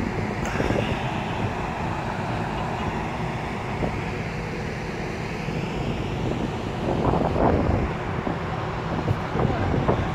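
Wind blowing on the microphone over distant road traffic and a steady low hum.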